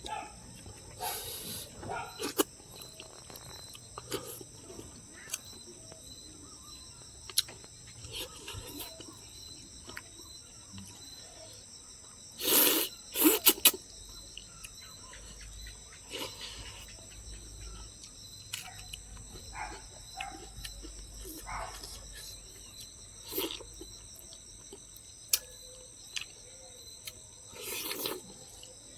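Eating sounds from a person having fish curry: scattered chewing, mouth clicks and short noisy bursts, with a louder cluster of bursts about twelve to fourteen seconds in. Behind them runs a steady high chirring of crickets.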